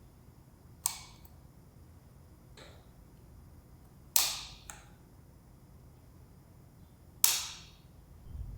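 Three sharp clicks about three seconds apart, each with a short ringing tail.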